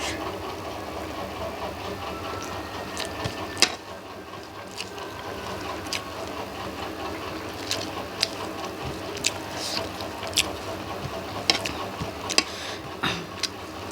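Close-up eating sounds, scattered short clicks and smacks of chewing and mouth noises, over the steady hum of a running electric fan.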